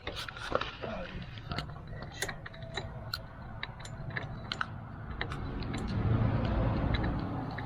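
Bicycle chain and sprocket clicking and rattling in irregular light metallic ticks as the chain is handled after slipping off the front sprocket. A low rumbling noise builds up about five seconds in.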